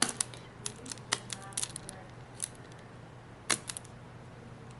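Scattered sharp clicks and light taps of small hard objects being handled, with one louder click about three and a half seconds in, over a faint steady hum.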